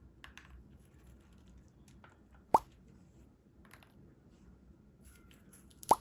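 Two short, rising 'plop' pop sound effects, about three seconds apart, over faint scattered clicks and rustles.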